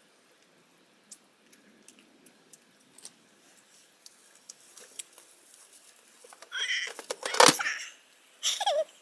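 Rummaging in a cooler box: faint small clicks and ticks at first, then a burst of knocks and rattling as something is taken out, loudest a little after seven seconds in, followed by a second shorter clatter near the end.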